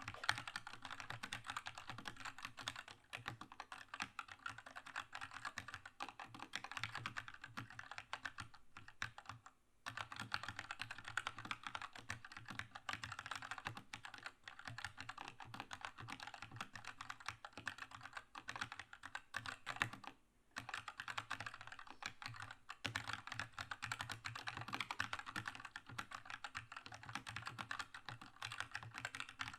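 Continuous fast typing on a Keychron K2 mechanical keyboard with red switches: a dense run of key clacks, briefly pausing about ten seconds in and again about twenty seconds in.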